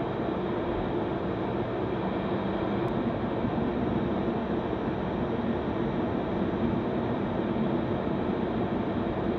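Steady cabin noise from an Eclipse 500 jet's twin Pratt & Whitney PW610F turbofans running at low power while the plane taxis slowly.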